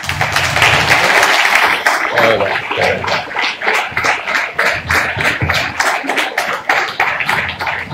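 Audience applause: dense clapping at first that thins into more separate claps toward the end.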